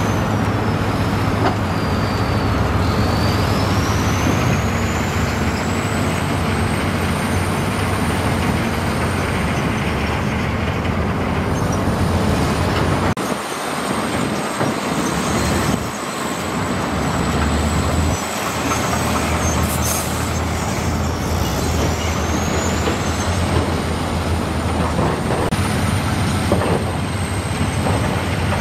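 Heavy diesel construction machinery running steadily, with a thin high whine that rises and falls over the engine noise.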